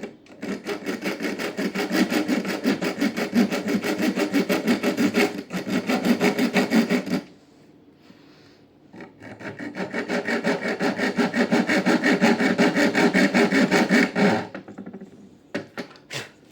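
Hacksaw blade sawing back and forth across a stainless-steel screw held in locking grip pliers, in rapid even strokes, cutting a screwdriver slot into it. The sawing stops for about two seconds around seven seconds in, then runs again until about fourteen seconds in, followed by a few light clicks.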